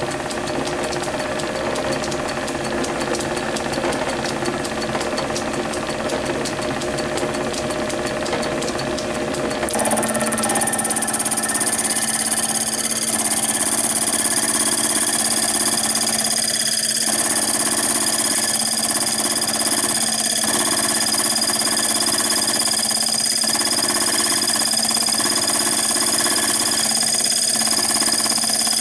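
Small metal lathe running with a slitting saw spinning on a mandrel in the chuck, while a brass rod is fed slowly up into the saw to slot it. About ten seconds in the sound changes and a steady high whine joins the running machine.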